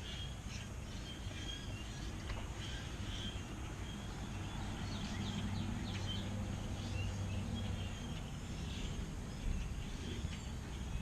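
Outdoor background of birds chirping over a low traffic rumble, with a vehicle engine swelling and fading in the middle and a short low bump near the end.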